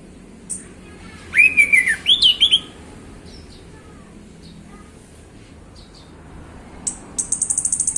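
Male orange-headed thrush singing: a loud phrase of clear whistled notes mixed with high twittering about a second in, then a fast, high, evenly pulsed trill near the end.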